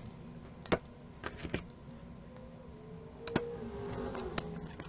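Scattered sharp, light clicks and clinks of small metal hand tools handled on a repair bench, about six of them, over a steady faint hum.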